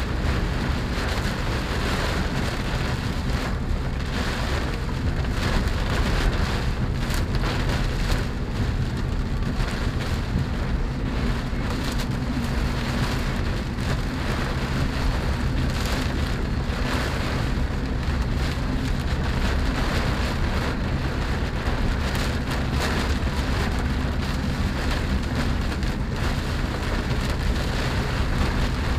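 Rain pattering steadily on the roof and windscreen of a Chevrolet Spark, heard from inside the cabin, over a constant low rumble of the car on the road.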